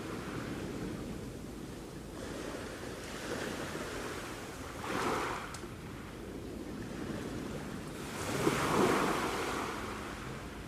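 Sea waves washing onto the shore, a continuous surf hiss with two louder surges as waves break, about five seconds in and again near the end.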